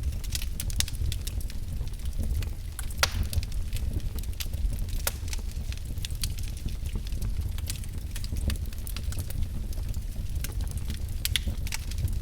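Wood fire burning in a fireplace: a steady low rumble of flames with frequent, irregular crackles and pops, one louder pop about three seconds in.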